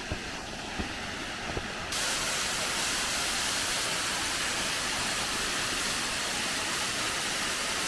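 Small forest waterfall: a steady hiss of falling water splashing onto rocks, which jumps louder and brighter about two seconds in, as heard close to the falls. A few light knocks come in the first two seconds.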